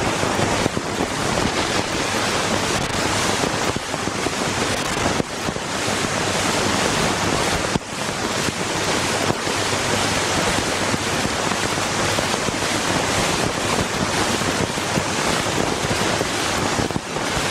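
Loud, steady hiss of static noise, spread evenly from low to very high, with a faint low hum beneath it.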